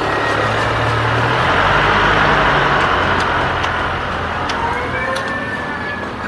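A motor vehicle passing by, its engine and road noise swelling to a peak about two seconds in and then slowly fading.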